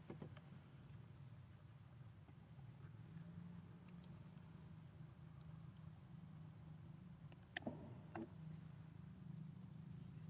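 Faint insect chirping in a steady rhythm of about two chirps a second over a low steady hum, with two sharp clicks about three-quarters of the way through.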